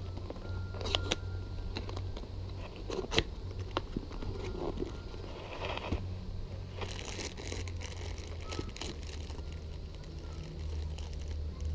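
Cardboard bait box being opened and the plastic bag of earthworms inside it crinkled and handled: scattered sharp clicks and rustles, with a denser stretch of crinkling in the second half, over a steady low hum.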